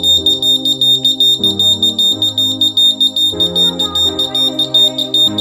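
Piezo buzzer of a homemade earthquake alarm sounding a continuous high-pitched beep that flutters rapidly in loudness, set off by the swinging pendulum weight touching its contact.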